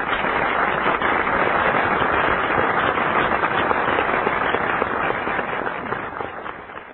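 Studio audience applauding, dying away over the last couple of seconds.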